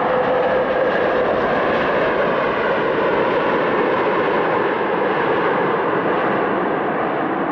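Airliner jet engines running: a loud, steady noise with faint steady whining tones above it.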